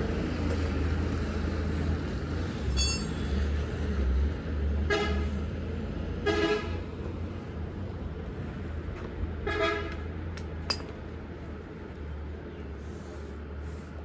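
Vehicle horns giving several short toots, a brief higher one about three seconds in and three more between about five and ten seconds in, over a steady low engine hum.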